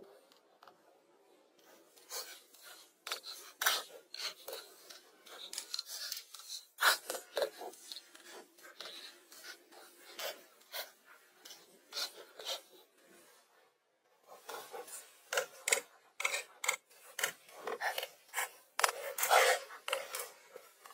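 Gritty scraping and crunching of gloved hands digging in dry, stony soil: irregular short scrapes, several a second, with a pause of about a second around two-thirds through.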